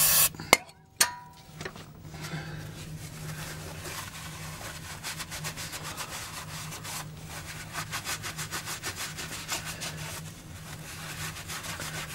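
Aerosol brake cleaner hissing, cutting off about half a second in, then two sharp clicks. After that, a long run of quick rubbing strokes as the greasy control-arm mount inside the wheel well is scrubbed clean.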